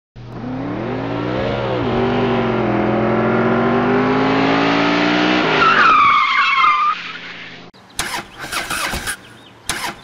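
Car engine revving up, dropping in pitch about two seconds in as if shifting gear, then climbing again, followed by a tyre screech. After a cut, two short bursts of noise near the end.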